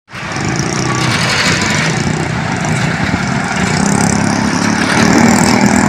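Motor vehicle engines running steadily with traffic noise, growing a little louder about five seconds in.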